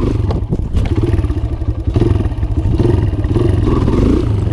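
Kawasaki KLX140 single-cylinder four-stroke dirt bike engine revving up and down as the clutch is let out to pop a wheelie.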